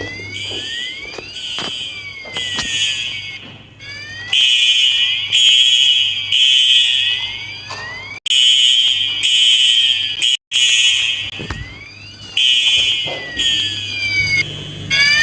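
Fire alarm horns sounding in a temporal-three evacuation pattern: three short blasts, a pause, then three more, repeating, with sweeping tones rising and falling underneath. The fire alarm system is in alarm after a pull station was pulled.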